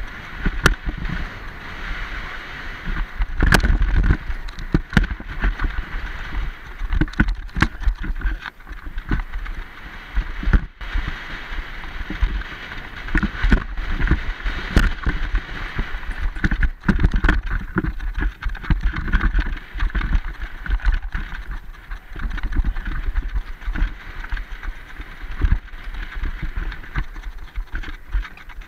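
Mountain bike descending a dirt trail at speed: wind buffeting the camera microphone, tyres rumbling over the dirt, and frequent sharp clacks and rattles as the bike hits bumps.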